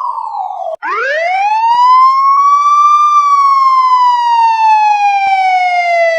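Police siren wailing, its pitch sliding slowly up and down. The tone falls and breaks off briefly under a second in, climbs for about two seconds, glides slowly back down, and starts rising again near the end.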